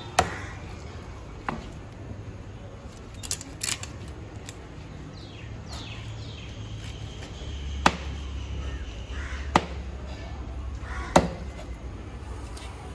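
A large knife chopping tuna into chunks on a wooden log chopping block: about six sharp knocks of the blade striking the wood, spaced irregularly a second or more apart.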